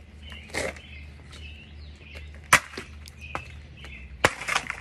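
Hammer blows on a frozen plastic water bottle: about five sharp knocks of hammer and ice on a woven mat, the loudest about two and a half and four seconds in. Birds chirp faintly between the blows.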